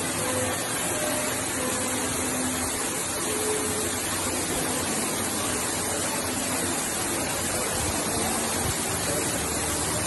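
Ruby Falls, a 145-foot underground waterfall, pouring steadily into its pool: an even, unbroken rushing of falling water.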